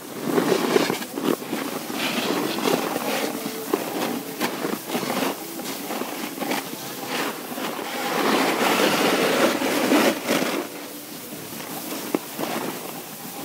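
Snow scraping under edges while riding down a groomed ski slope, with wind rushing over the microphone. It surges loudest about half a second in and again for a couple of seconds near the two-thirds mark.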